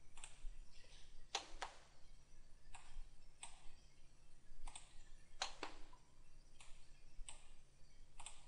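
Computer mouse clicking: about a dozen sharp, faint clicks at uneven intervals, over a faint steady low hum.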